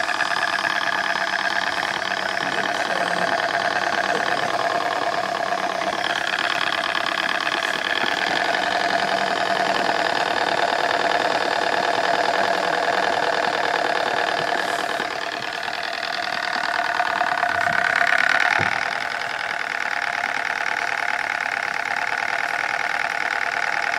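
Small TVR-1A model steam engine running steadily on steam, with a rapid even beat, over a continuous hiss of steam from the boiler's safety valve blowing off at about 35 psi.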